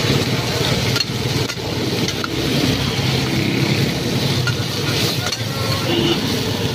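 Meat sizzling as it fries in a steel karahi, stirred with a metal ladle, over a steady low rumble.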